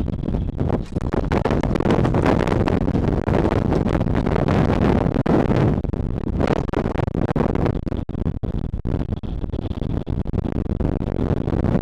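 Gale-force bise wind buffeting the microphone in uneven gusts, a loud, rumbling rush of wind noise.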